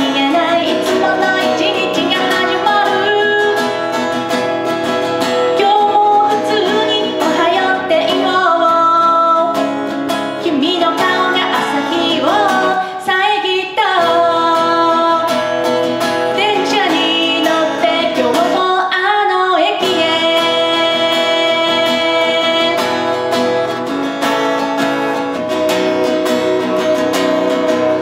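A woman singing a song live into a microphone while strumming an acoustic guitar.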